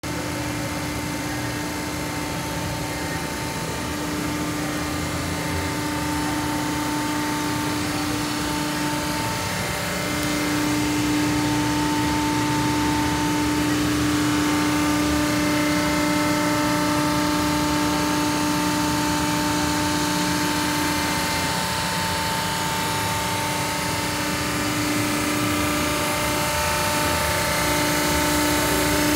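Samco TC-75 die-cutting press running under power: a steady machine hum with a constant droning tone over an even hiss, growing a little louder about ten seconds in.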